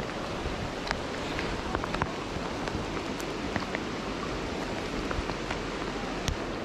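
Heavy rain falling on a river's surface: a steady hiss with many scattered sharp taps of nearby drops.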